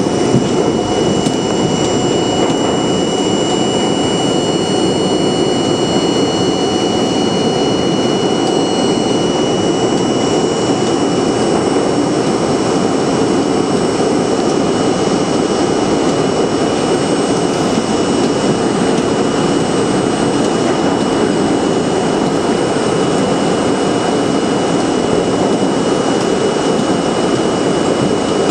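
New York City subway train running through a tunnel, heard from inside the car: a loud, steady rush and rumble of wheels on rail with a thin, steady high whine over it. Some higher tones fade out about a third of the way through.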